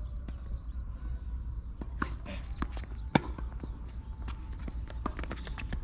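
Tennis play on a court: a string of sharp knocks from about two seconds in, which are ball bounces and footsteps, with one loud racket-on-ball strike a little past three seconds. A steady low rumble runs underneath.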